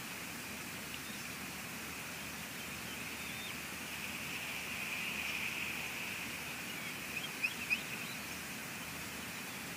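Steady outdoor hiss of rain and wind, swelling slightly midway, with a few short, high bird chirps about seven and a half seconds in.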